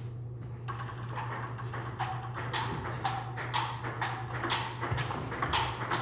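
Table tennis ball clicking in a quick, even run of light ticks off the paddles and table, over a steady low hum.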